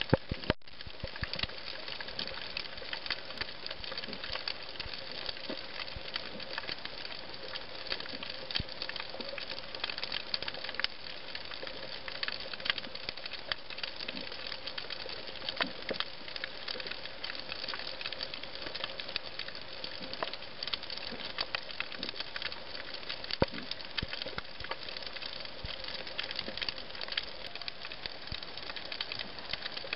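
Underwater coral-reef ambience: dense, irregular crackling over a steady hiss, the crackle typical of snapping shrimp on a reef.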